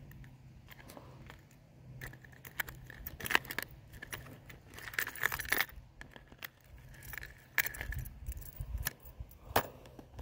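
Metal lures (bladed jigs and spinnerbaits) clinking and rattling against each other and the plastic walls of a clear compartment tackle box as they are picked through: an uneven run of sharp clicks and small jingles, busiest in the middle.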